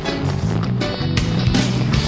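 Rock music: drums striking at an even beat over held bass notes, in a short break between sung lines.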